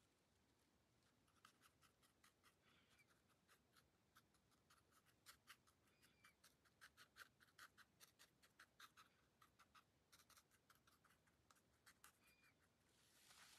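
Faint, quick taps of a round watercolour brush dabbing paint onto paper, several light taps a second, as leaves are stippled in with the belly of the brush. A soft rustle comes in near the end.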